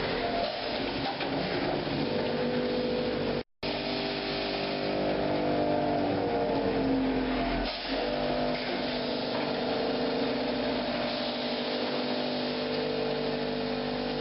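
Concrete paving-slab turntable press running: a steady machine hum made of several held tones over a noisy rumble. It breaks off for a moment about three and a half seconds in.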